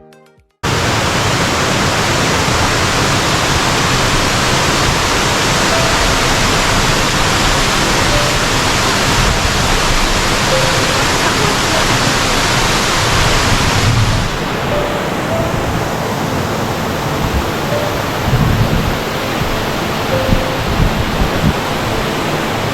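Loud, steady rush of falling water from a waterfall and stream. About fourteen seconds in it turns duller as the hiss at the top fades.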